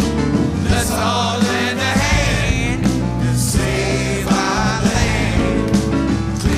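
A song with singing over instrumental backing.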